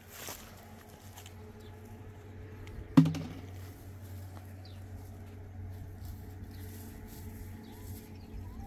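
A single sharp bang about three seconds in, over a steady low hum that grows stronger after the bang.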